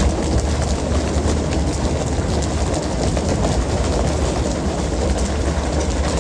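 Fishing boat's engine running with a steady low rumble under the rush of churning sea water, with scattered short knocks and clatter from the deck.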